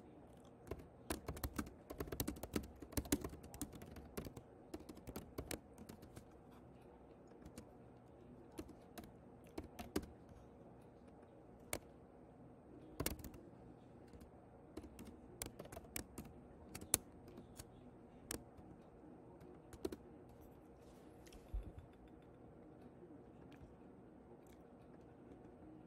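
Typing on a computer keyboard: a quick run of keystrokes in the first few seconds, then scattered single keystrokes and clicks.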